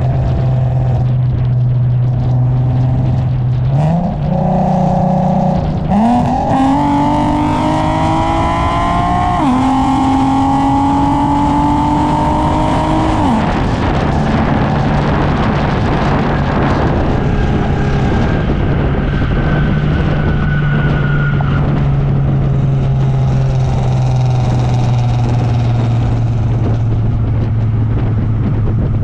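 Infiniti G37 sedan's 3.7-litre VQ V6 exhaust, heard from just behind the car. It cruises with a steady drone, then the revs climb hard from about four seconds in, dip at a gear change near ten seconds and climb again. The engine backs off near fourteen seconds and settles into a steady cruise hum with road rush.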